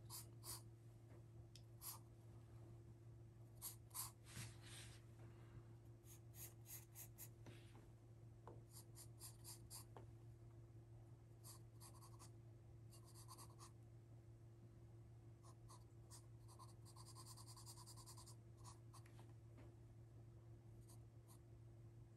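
Wooden graphite pencil scratching on drawing paper: faint, irregular strokes, mostly short and in quick clusters, with a longer run of back-and-forth strokes about three quarters of the way through. A faint steady low hum sits underneath.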